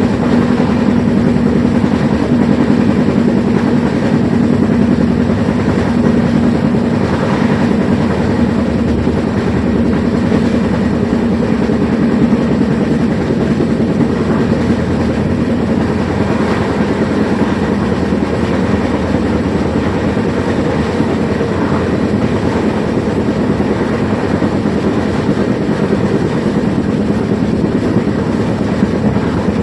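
Train running on the rails, a loud steady rumble with a constant low hum through it.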